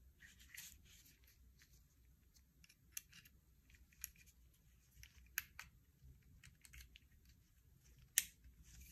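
Sharp plastic clicks from a Slice folding utility knife as a ceramic blade is fitted into its blade holder, five or so spread out, the loudest near the end, with soft rustling of nitrile gloves between them.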